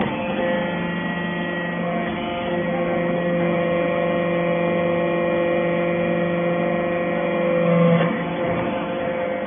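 Steady hum of a running hydraulic briquetting machine, its pump motor holding several steady tones, swelling briefly about eight seconds in.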